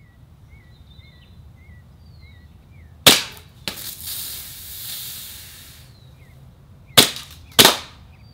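Pistol shots: a loud report about three seconds in and a fainter one just after, then two shots in quick succession near the end. A hiss runs for a couple of seconds between them. Small birds chirp before the first shot.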